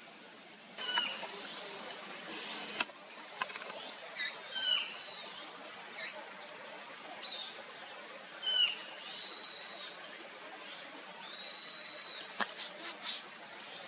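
Small wild birds calling: short whistled notes that arch up and down in pitch, repeated every second or two over a steady hiss, with a sharp click about three seconds in and a few more clicks near the end.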